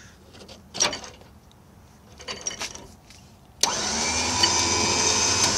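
An electric winch motor starts suddenly about three and a half seconds in and runs with a steady whine. A few faint clicks come before it.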